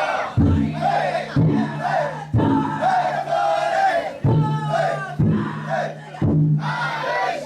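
A big drum on a taikodai festival drum float, struck roughly once a second, each beat ringing on, while a crowd of men chant and shout along.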